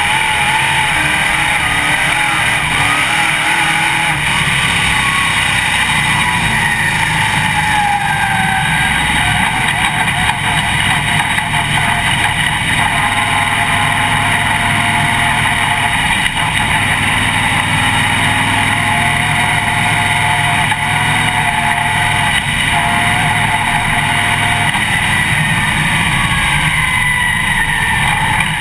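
Dirt late model race car's V8 engine heard from inside the cockpit, running hard at speed. Its pitch repeatedly rises and falls as the throttle is worked around the track.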